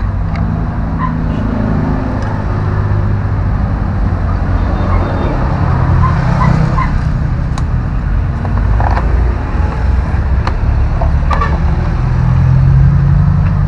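Steady low engine rumble, like motor vehicles running nearby, with a few light clicks and taps over it.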